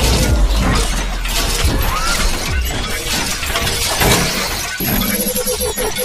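Intro-animation sound effects: a dense run of shattering, crashing hits over a deep bass rumble.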